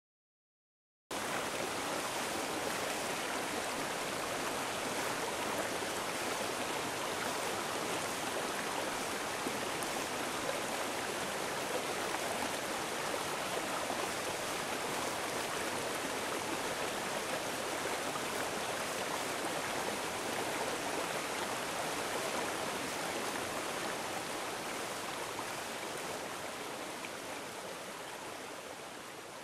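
Steady rush of running water with no other events. It starts abruptly about a second in and fades out toward the end.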